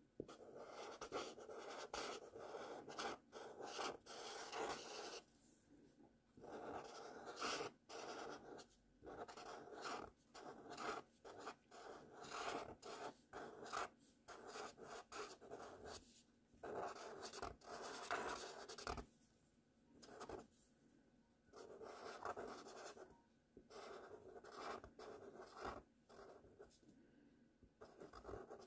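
Felt-tip marker writing cursive letters on paper: short, irregular strokes of the tip across the sheet, broken by brief pauses between letters.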